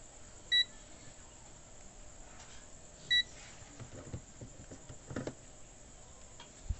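Two short beeps from a digital multimeter, about two and a half seconds apart, as its buttons are pressed, followed by a few soft handling knocks.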